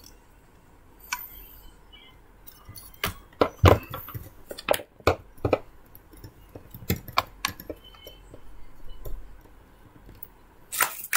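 Handling noise from a desktop condenser microphone, its metal tripod stand and USB cable being moved about on a wooden desk: irregular sharp clicks, taps and small knocks, the loudest about three and a half seconds in.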